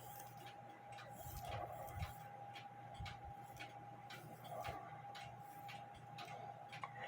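One-day AMS cuckoo clock movement ticking steadily, about two ticks a second, over a faint steady tone.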